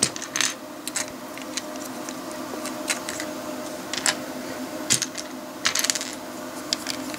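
LEGO bricks clicking and tapping as plastic pieces are handled and pressed onto the studs: scattered sharp clicks about once a second, with a quick cluster of them near the end.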